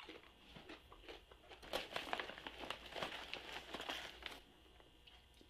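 Lay's potato chip bag crinkling and rustling as a hand reaches into it for a chip, a dense run of crackles lasting about two and a half seconds from near the middle.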